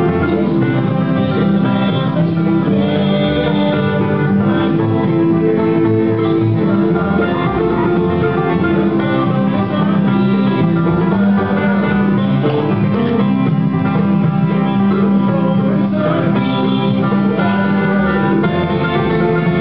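Live bluegrass band playing: banjo picking, strummed acoustic guitar and upright bass, with voices singing together in harmony.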